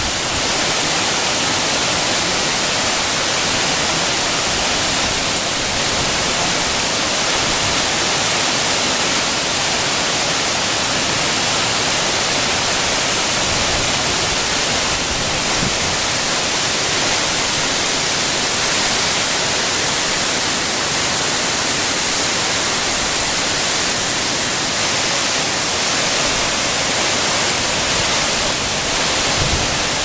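A tall multi-strand waterfall falling onto rocks: a loud, steady, even rush of water, strongest in the hiss range, with no change.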